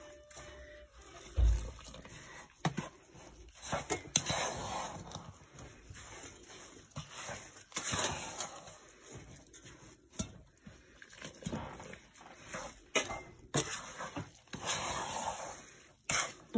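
Wooden spoon stirring and scraping a roasted-flour halva mixture in a frying pan: irregular swishes and scrapes with short knocks of the spoon against the pan, and one dull thump about a second and a half in.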